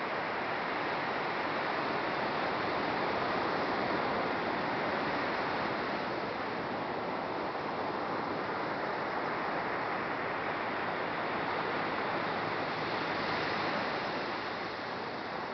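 Surf washing onto a sandy beach: a steady rush of breaking waves that swells and eases gently.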